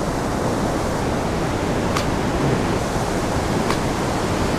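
Ocean surf washing in over the beach, a steady rush of water without separate crashes. Two light clicks stand out, about two seconds in and again near the end.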